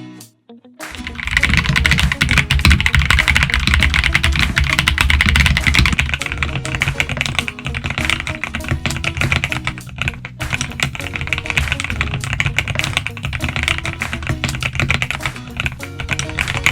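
Rapid typing on a mechanical keyboard, a dense run of key clicks, over background music with steady low notes.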